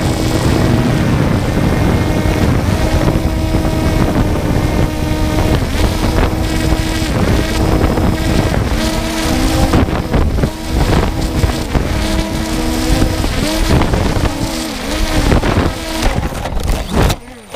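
3DR Solo quadcopter's motors and propellers humming under heavy wind noise, the pitch dipping and wavering again and again as the drone, unstable and out of contact, drifts down. Near the end it crashes into grass, breaking its propellers, and the motor sound cuts off abruptly.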